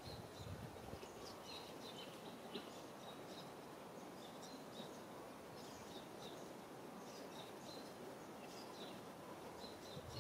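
Faint outdoor ambience: a steady background hiss with short high chirps scattered throughout, typical of small birds calling in the distance.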